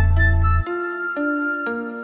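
Background music: a melody of short pitched notes, with a deep bass that drops out about half a second in.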